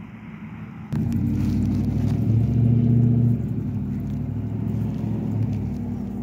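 An engine running with a steady low hum that starts suddenly about a second in, swells for a moment and then eases off a little.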